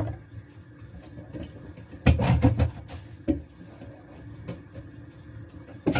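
Objects handled on a kitchen counter: a quick run of clattering knocks about two seconds in, a single knock a second later and another near the end, with low room noise in between.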